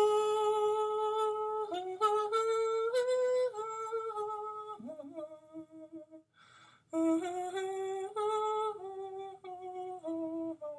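A man humming a short wordless tune in held notes that step up and down in pitch, in two phrases with a brief pause between them.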